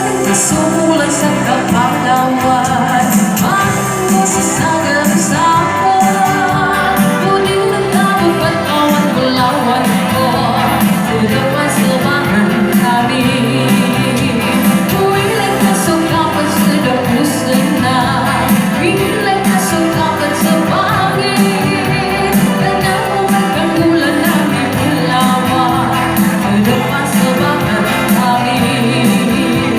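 A Moro pop song sung over band accompaniment.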